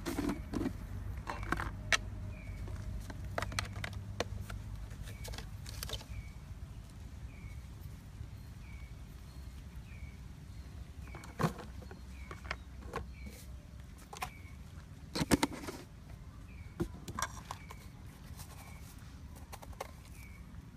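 Clicks and knocks of a glass jar, its plastic lid and utensils being handled beside a mixing bowl, with two louder knocks about eleven and fifteen seconds in. A short high chirp repeats about once a second in the background.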